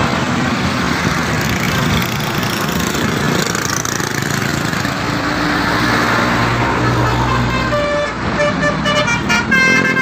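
Bus engine and road noise from a coach passing close by, then near the end a multi-tone 'telolet' bus horn playing a quick melody of short notes.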